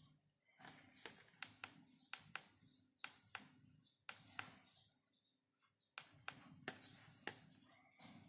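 Faint, irregular taps and clicks, about a dozen, from fingers handling a smartphone, over a very quiet room background.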